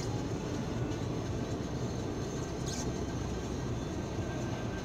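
Cabin road noise of a car cruising at about 90 km/h on a wet highway, picked up by the dashcam: a steady low rumble with tyre hiss. A brief higher hiss comes a little under three seconds in.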